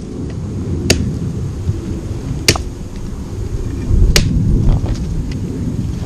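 Three sharp clacks of hard objects striking, about a second and a half apart, over a steady low rumble.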